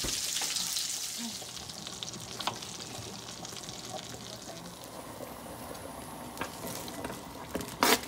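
Butter and olive oil sizzling in a skillet: a steady high hiss that fades over the first couple of seconds to a softer sizzle with scattered light clicks, then a sharp knock near the end.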